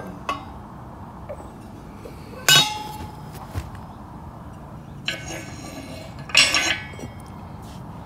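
Steel parts of a welded rocket stove clinking as they are handled: two loud, ringing metal clinks about two and a half and six and a half seconds in, with lighter metallic taps between.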